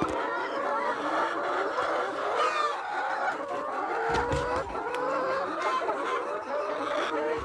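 A flock of laying hens in a crowded poultry pen, clucking and calling all at once, many overlapping calls without a break.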